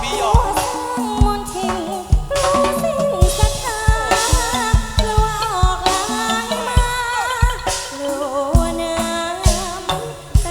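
Live likay theatre music: a Thai ensemble playing a wavering melody over steady drum beats.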